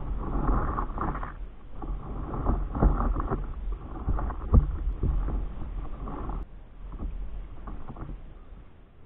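Water sloshing and splashing against the nose of a stand-up paddleboard as it is paddled, with irregular louder splashes from paddle strokes over a low rumble. It turns quieter about six and a half seconds in.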